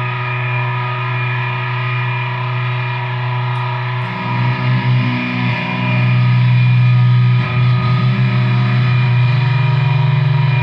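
Music: a distorted guitar holding a long ringing chord over a steady low drone, with lower notes starting to shift about four seconds in.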